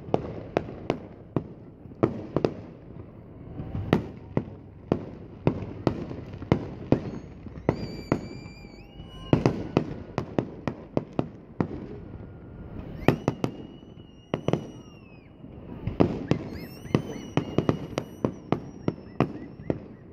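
Aerial fireworks shells bursting in a rapid run of sharp bangs, several a second, with a few high whistles held over them in places.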